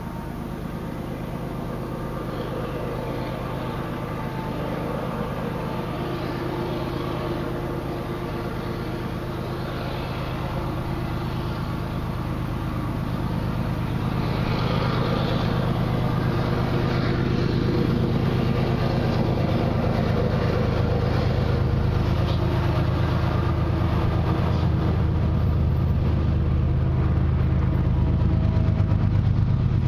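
Diesel locomotive engine, a GE ES44AC, approaching from a distance with a train; its low, steady drone grows steadily louder as it nears.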